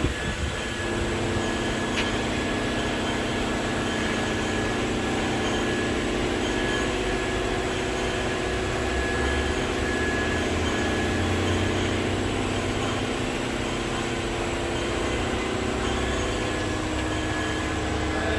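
Steady mechanical drone with several held low tones and an even hiss, unchanging throughout.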